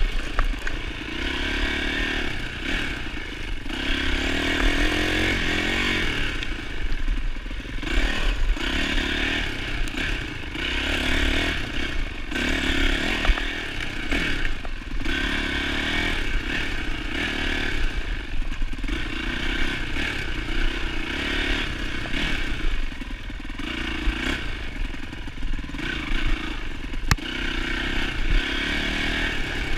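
2007 Yamaha YZ450F single-cylinder four-stroke dirt bike engine being ridden along a trail, the engine note rising and falling every second or two as the throttle is opened and shut. Clattering from the bike runs under the engine throughout.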